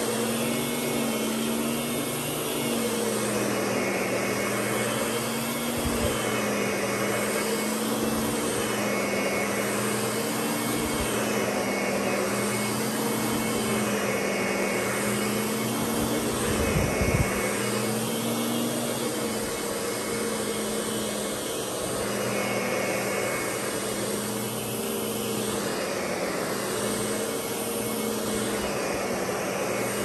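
Lindhaus Diamante upright vacuum cleaner running on carpet: a steady drone whose pitch wavers slightly every couple of seconds as it is worked, with a few soft low bumps.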